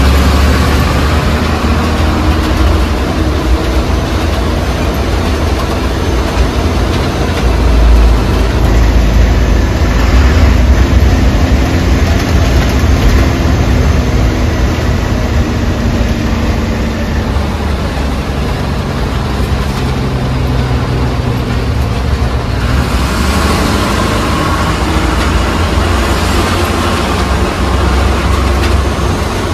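MSRTC bus's diesel engine running under way, heard from inside the driver's cabin: a loud, steady low rumble with engine hum and road noise, the noise getting brighter about two-thirds of the way through.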